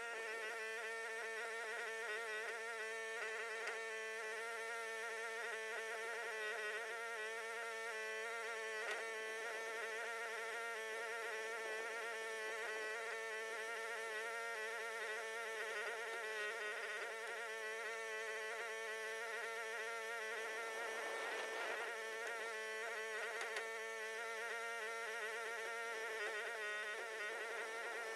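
A mini excavator's engine running steadily, heard as an even, high buzzing drone that wavers slightly in pitch.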